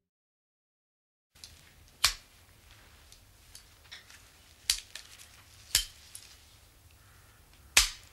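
Sharp, irregular clicks over a faint low hum and hiss, starting after about a second of silence; four of the clicks are much louder than the rest.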